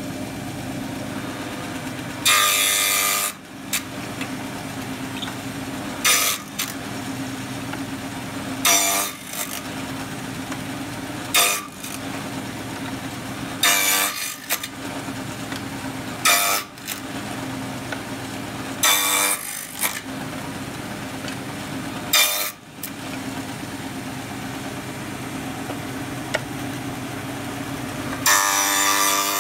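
Table saw running steadily with a low hum, its blade biting through the end of an upright spruce board nine times, about every two to three seconds, as the box-joint jig is pushed through: cutting the fingers of a box joint. The first and last cuts are the longest.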